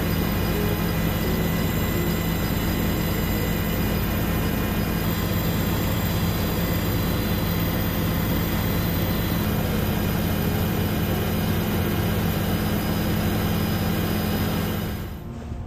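Steady drone of an aircraft's engine and airflow, heard from aboard the aircraft, with a constant low hum under a wide rushing noise. It cuts off suddenly near the end.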